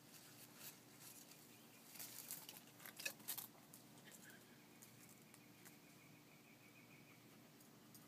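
Faint scratching and clicking of a kitten's claws gripping tree bark as it climbs down, busiest about two to three seconds in. A faint thin high tone is held for about three seconds in the second half.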